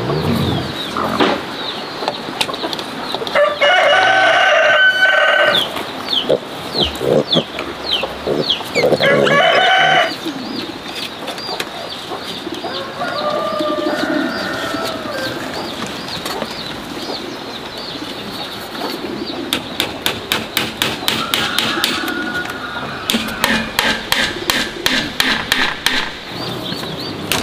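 A rooster crows twice, each crow about two seconds long, with fainter calls from other chickens and high, quick falling chirps between the crows. In the last third there is a fast, even run of light taps, about five a second.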